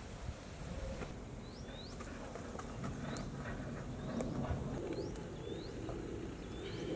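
A bird repeating a short, high, hooked chirp about once a second, starting about a second in, over a low rumble and a few faint clicks.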